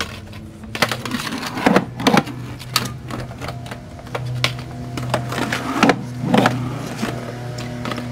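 Skateboard rolling on concrete: a steady low wheel hum that grows louder about halfway through, with a run of about ten sharp, irregular clacks and knocks from the board.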